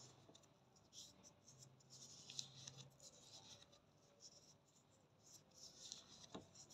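Faint rubbing and scratching of fingertips pressing a ready-to-use wax strip onto the skin of the armpit so the wax grips the hair, with a small click near the end.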